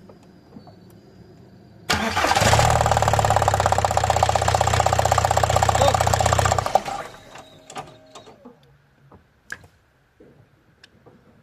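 Car engine being started: a loud, fast, even mechanical churning that begins suddenly about two seconds in and stops after about five seconds.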